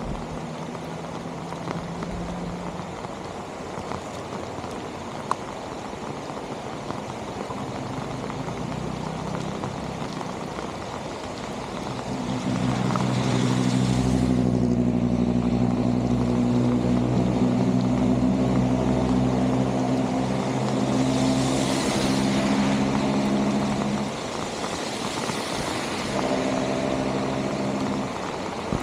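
A motor vehicle's engine running close by, a steady hum from about twelve seconds in that stops about twelve seconds later and returns briefly near the end, over a continuous rushing noise.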